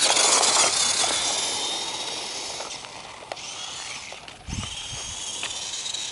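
Radio-controlled truck driving over wet dirt and pavement: a faint motor whine under a loud hiss of tyres on the wet surface, fading after the first second or so, with a low thump about four and a half seconds in.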